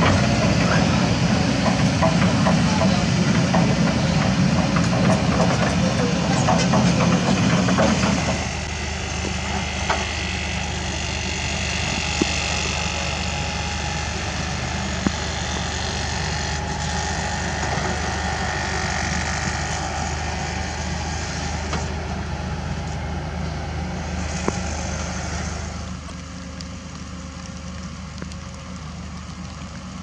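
Kobelco SK200 hydraulic excavator working, its diesel engine running with clattering for about the first eight seconds. After that it becomes a steadier, quieter engine hum with a few sharp knocks, and it drops in level again near the end.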